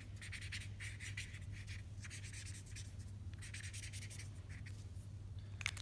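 Brush-tip marker stroking back and forth on paper, colouring in with quick short strokes, several a second, with a brief pause about three seconds in. A sharp click near the end.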